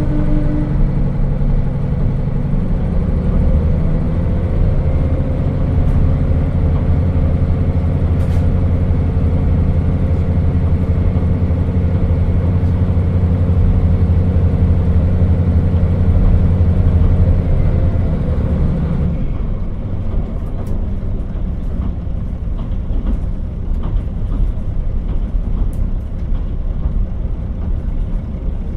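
KiHa 40 diesel railcar running under power, its diesel engine pulling steadily with the pitch rising a little a few seconds in. About two-thirds of the way through the engine sound falls away as the throttle is shut, leaving the rumble of the wheels on the rail with scattered clicks while it coasts.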